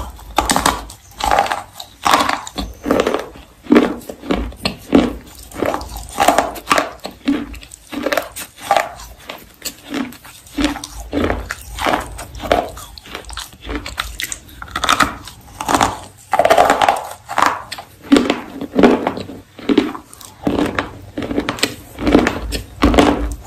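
Baked clay rolls being bitten and chewed close to the microphone: a steady run of dry crunches, about two a second.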